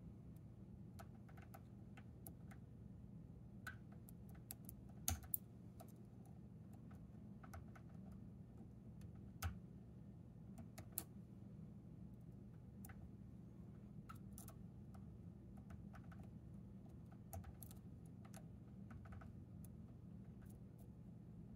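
Faint, irregular small metallic clicks of a hook pick working the pins of a tubular pin-in-pin lock held under tension, with a few louder clicks scattered through, the loudest about a quarter and halfway in. A low steady hum sits under them.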